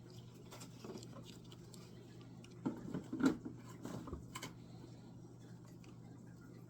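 A few light clicks and taps, bunched about three to four seconds in, with a steady low hum underneath.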